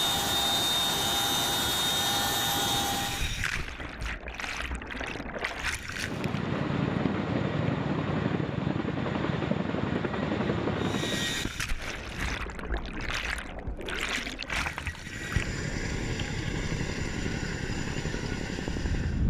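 CH-47 Chinook tandem-rotor helicopter hovering low over water, its rotors and engines making a dense steady noise. The sound changes abruptly several times as different shots follow one another, with gusty stretches in between.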